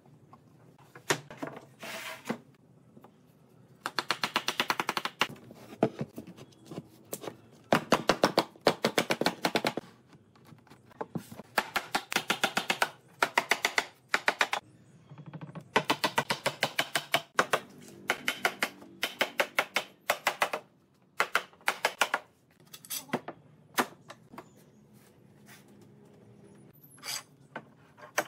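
Rapid runs of sharp mechanical knocks, roughly a dozen to the second, in repeated bursts of one to two seconds with short pauses between. This is a power tool hammering at work.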